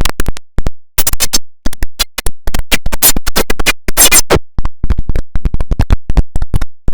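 The IBM OS/2 Warp 3 shutdown sound chopped into rapid, stuttering fragments of uneven length by an edit effect. Each fragment cuts off abruptly into silence, and the fragments come faster and closer together in the second half.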